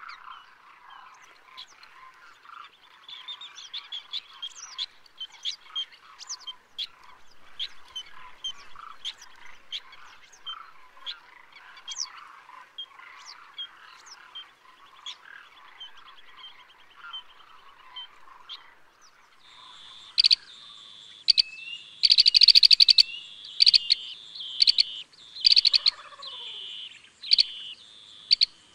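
Outdoor animal chorus: many short chirps and croaks over a dense chatter. From about two-thirds of the way in, louder sharp chirps sound over a steady high buzz, with one short downward call near the end.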